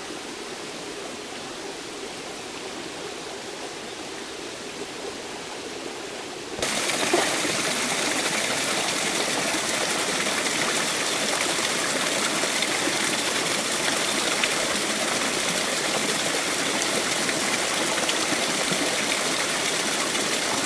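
Running water of a mountain stream and waterfall, a steady rush. About six and a half seconds in it cuts suddenly to a louder, brighter rush of water that then holds steady.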